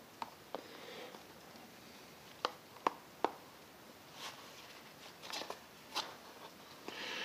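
Small plastic clicks and light handling noises from a Miller LPR100 half-mask respirator as a filter is worked onto it by hand: a few sharp ticks scattered through, three of them close together around the middle, with soft rustling between.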